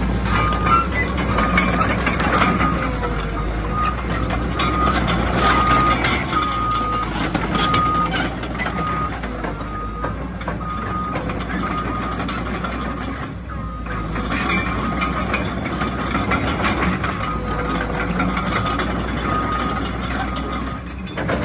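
CAT 315D excavator's diesel engine running while the machine tracks, its travel alarm beeping steadily a little faster than once a second, with occasional clanks from the undercarriage.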